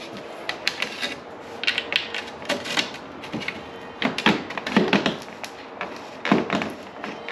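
Irregular knocks, scrapes and rubbing as a front splitter is pushed and worked into place against the plastic underside of a car's front bumper, the loudest knocks coming in the second half.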